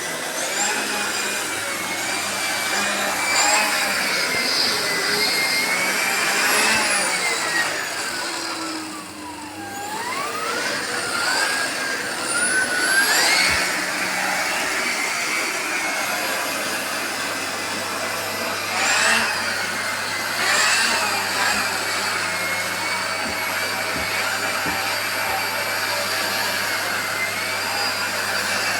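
Artel 2000 W vacuum cleaner running, its motor whining steadily. About nine seconds in, the pitch glides down and the sound dips, then rises back up.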